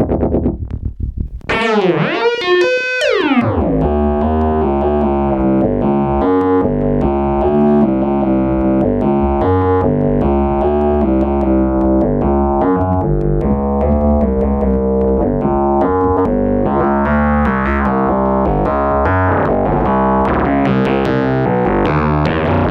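Pittsburgh Modular Voltage Lab 2 analog synthesizer playing: sweeping, gliding tones about two seconds in, then a sequenced run of notes over a steady bass.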